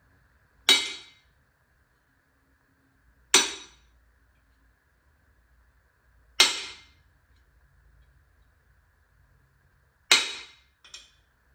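A hammer striking a socket and extension, driving a new power steering rack seal into its housing: four hard, ringing blows about three seconds apart, with a light tap just after the last.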